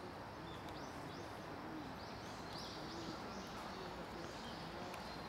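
Birds chirping faintly, a run of short high calls through the middle, over a quiet outdoor hush.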